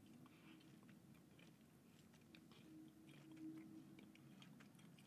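Faint chewing of a piece of plant-based jerky: soft, scattered mouth clicks over a low steady room hum.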